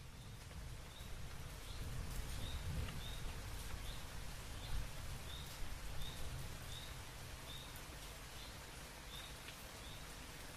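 Outdoor nature ambience: a low, steady rumble under a short high chirp that repeats evenly, about once every three-quarters of a second.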